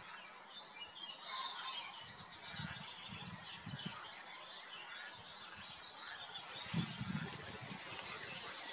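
Small songbirds chirping and singing, with a quick run of about six high notes around five seconds in. Irregular low thumps sound underneath, the loudest a little before the end.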